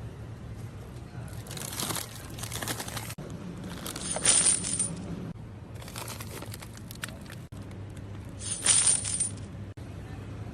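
Groceries being handled: two rounds of rustling packaging, each followed by a short, louder, sharper crinkle. A low steady hum runs underneath.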